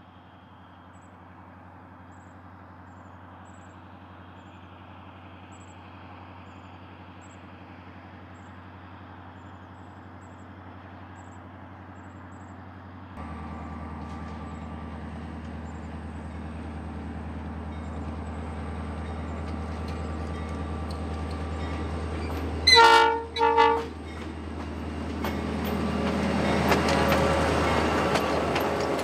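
Diesel locomotives of a passenger train approaching, an EMD GP35 leading, its engine drone growing louder. About 23 seconds in the horn sounds in two short blasts. Then the locomotives pass close by with loud engine and wheel noise.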